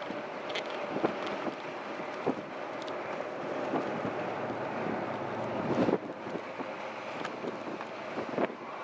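Jeeps driving by on a paved road: a steady rush of engine and tyre noise with wind on the microphone, swelling to its loudest a little past the middle as one passes close.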